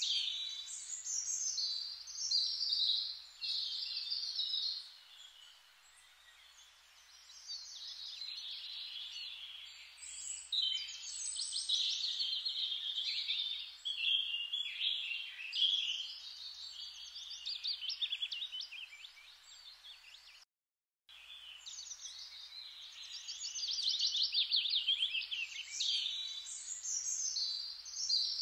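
Small songbirds chirping and trilling: rapid high trills that come and go. The sound drops out completely for about half a second around two-thirds of the way through.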